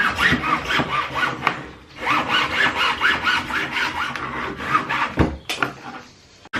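Hand saw cutting lengthwise through PVC pipe: quick back-and-forth strokes, about three a second, each with a rising squeak. The sawing pauses briefly about two seconds in and stops a little after five seconds with a knock.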